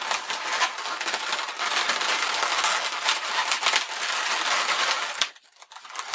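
Inflated 260 latex modelling balloons being pressed, rubbed and squeezed together by hand, a dense crackly rubbing and squeaking. It cuts off abruptly with a click a little after five seconds in, leaving a moment of near silence.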